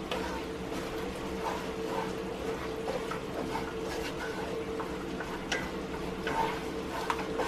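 Wooden spatula stirring and scraping a thick flour-and-butter roux around a cast iron skillet, in irregular scrapes and light knocks against the pan, over a steady hum.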